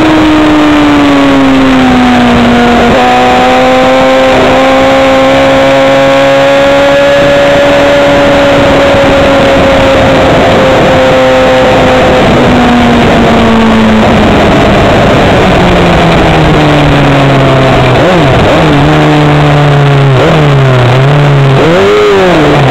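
Bimota YB4ei motorcycle's inline-four engine under hard throttle at racing speed, mixed with loud wind rush. The engine note holds high and steady for a long stretch, then eases down. Near the end the pitch dips and rises several times in quick succession.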